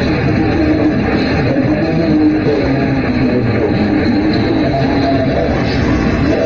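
Rock music with guitar, played loudly through a loudspeaker for a bass test.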